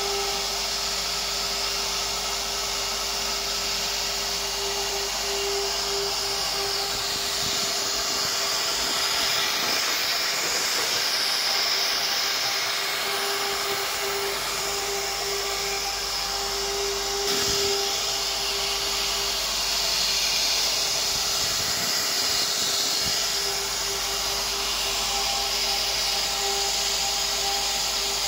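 CNC router spindle running with a steady whine as its bit carves a pattern into board, over a continuous hiss of cutting.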